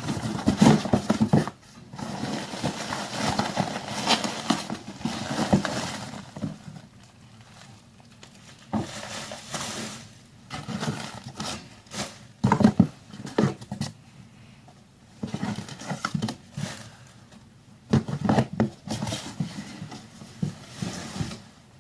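A cardboard parcel being cut open with a Leatherman multi-tool: irregular scraping, cutting and rustling of tape and cardboard, with a few sharp knocks as the box is handled.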